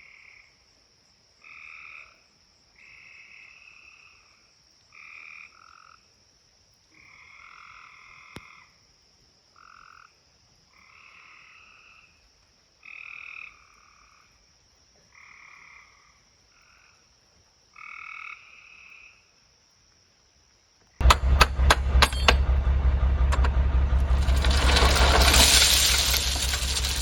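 Frogs calling: a series of about a dozen short trilled calls, each under a second, with a thin steady high tone behind them. About 21 seconds in, a loud engine-like rumble with rattling clicks cuts in abruptly and becomes the loudest sound.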